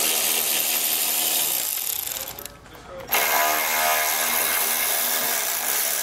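Cordless electric ratchet spinning out 10 mm headlight bolts: two runs of motor whir with a short break about two and a half seconds in.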